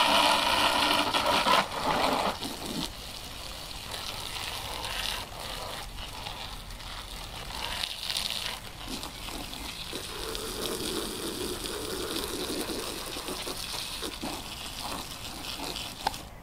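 Water jet from a hose spraying onto a 1:8 scale RC buggy, splashing off its plastic body, wheels and the surrounding grass. Loudest for the first couple of seconds, then softer and steady as the spray moves along the car.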